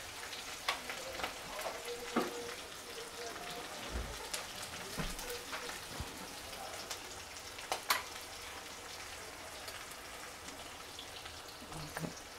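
Chopped garlic, green chillies and whole spices sizzling in hot mustard oil in a stainless steel kadhai, stirred with a spatula that gives scattered clicks and scrapes against the pan, the loudest a pair of taps about eight seconds in.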